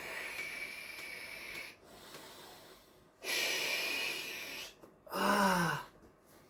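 A person's hissing breaths through the mouth, twice, each over a second long, then a short groan falling in pitch about five seconds in: a patient reacting to pain under deep-tissue pressure.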